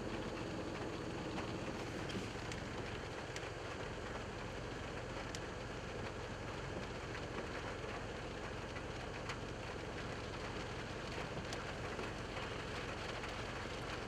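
Steady rain, with scattered single drops ticking.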